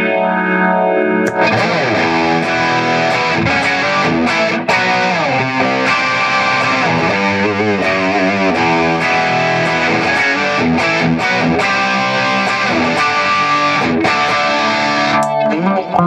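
Gibson Les Paul electric guitar played through a Mesa/Boogie Triaxis preamp on its high-gain lead red channel, with a TS-808 overdrive and delay. A held chord rings out, then from about a second in comes a heavily distorted lead line with string bends and vibrato.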